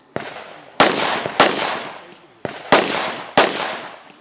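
Rifle fire in a practical shooting stage: six sharp shots in about three and a half seconds, each followed by a fading echo.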